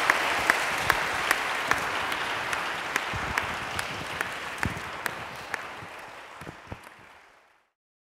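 Audience applauding in a church hall, with one nearby pair of hands clapping about two to three times a second louder than the rest. The applause dies away over the last few seconds and cuts off.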